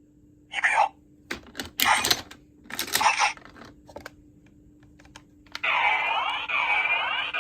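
Plastic clicks and taps as the CSM OOO Driver toy belt is handled and its medals are set. From about two thirds of the way in, the belt plays a loud warbling electronic sound effect with gliding pitches.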